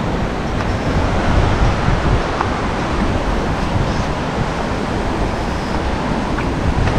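Sea surf washing onto the shore, with wind buffeting the microphone in a steady, fluttering low rumble.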